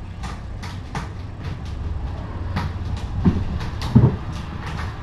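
Kittens scampering and wrestling on a hard plank floor: a quick run of light claw clicks and paw scuffs, with two dull thumps about three and four seconds in as a kitten jumps and lands, the second the loudest. A steady low hum runs underneath.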